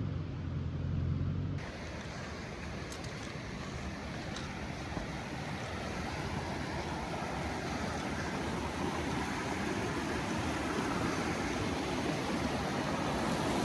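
A low rumble for the first second or so, then the steady rush of a fast-flowing creek running high, which grows gradually louder.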